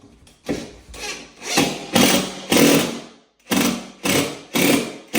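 Hand tool working on the radiator's fittings as it is refitted: a run of rasping strokes, about two a second, with a short break a little past the middle.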